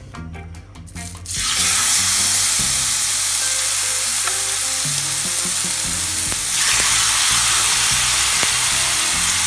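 Marinated chicken breast steaks sizzling as they are laid on a hot, oiled grill pan. The sizzle starts suddenly about a second in and then holds steady and loud.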